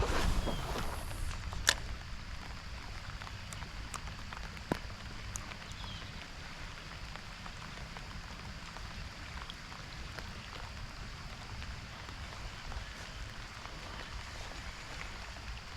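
Light rain pattering on water and on a kayak: a steady hiss with scattered drop ticks. A sharp click comes about two seconds in and a smaller one near five seconds.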